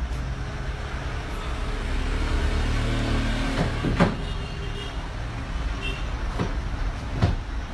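Deep, steady rumbling inside a shopping mall shaking in a magnitude 6.3 earthquake, mixed with crowd commotion. A sharp bang comes about four seconds in and another near the end.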